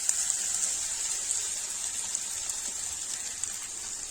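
Grated raw turmeric sizzling in hot ghee in a pan: a loud hiss with scattered crackles that slowly eases.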